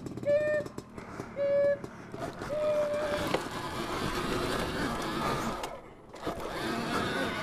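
Dirt bike revved in three short, steady-pitched blips, then a few seconds of rougher mechanical and dirt noise as it works at a steep ledge climb.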